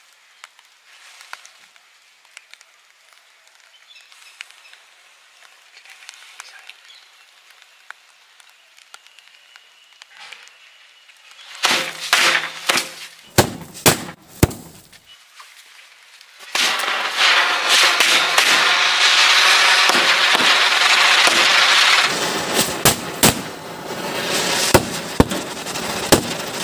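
Burning matchsticks crackle faintly, then a quick series of firecracker bangs goes off about eleven and a half seconds in. From about sixteen seconds a ground firework hisses loudly and steadily as it sprays sparks, with more firecrackers banging through it.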